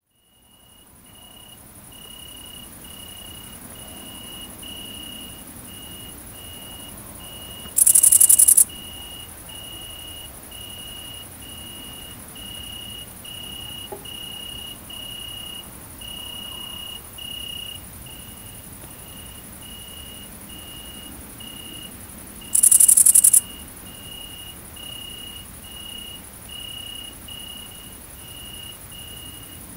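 Night insect chorus: the high-pitched continuous buzz of great green bush-crickets, broken twice by a loud buzzing burst about a second long. Under it, another insect repeats a short trill at a steady rate of about one and a half times a second.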